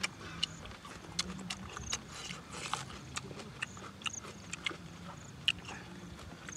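Mouth sounds of eating spicy noodles: irregular lip-smacking and chewing clicks, with a short hiss about two seconds in.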